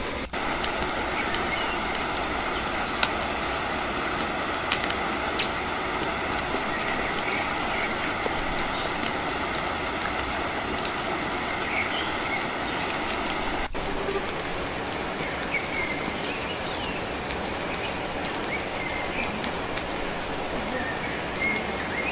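Campfire of dry sticks burning: a steady rushing noise with scattered sharp crackles, faint bird chirps and a constant thin high tone behind it.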